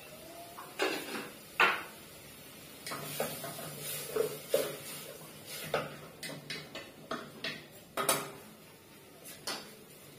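Kitchen clatter of a metal cooking pot and utensils: a series of sharp knocks and clinks, loudest about one and a half seconds in and again about eight seconds in, with smaller rattles between.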